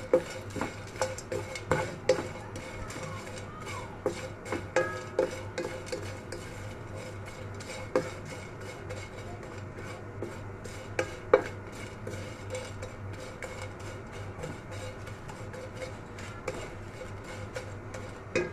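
A wooden spatula stirs and scrapes dried anchovies (dilis) in a black kawali as they dry-fry towards crispness before any oil goes in. The spatula knocks sharply against the pan, often in the first few seconds and then more sparsely, with single loud knocks at about two, eight and eleven seconds in.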